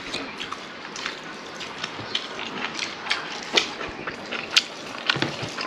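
Close-up eating sounds: irregular small mouth smacks and clicks as someone eats rice with jackfruit curry.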